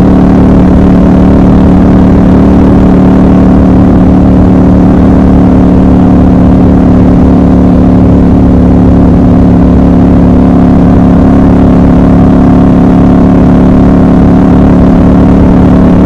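Triumph Scrambler 1200 XC's 1200 cc parallel-twin engine running at a steady cruise, its pitch holding even with no change in revs.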